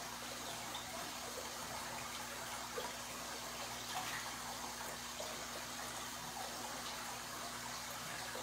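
Steady bubbling and fizzing of water from the air-stone bubble curtains in a large goldfish aquarium, with a low steady hum underneath.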